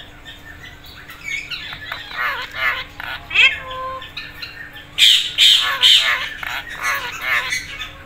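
Alexandrine parakeet and Indian ringneck parakeet chattering: quick warbling calls, a short held whistle near the middle, then louder harsh squawks from about five seconds in.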